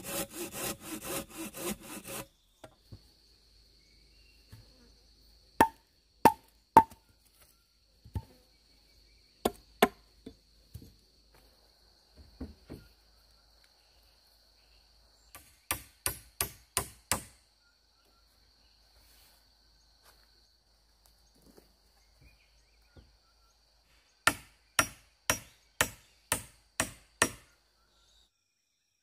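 A folding hand saw cutting through a green log with quick rhythmic strokes, stopping about two seconds in. After that come sharp wooden knocks, some single and some in quick runs of five to eight.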